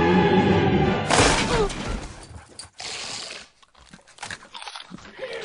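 Dramatic music is cut off about a second in by a loud crash with a shattering, breaking sound, like something smashing through glass. The crash dies away over about a second and is followed by quieter scattered sounds.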